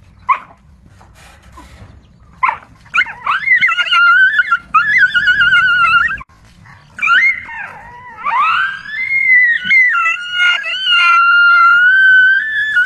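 A dog crying out in high-pitched, wavering whines: a couple of short sharp yelps in the first few seconds, then long drawn-out cries with a brief break about 6 seconds in.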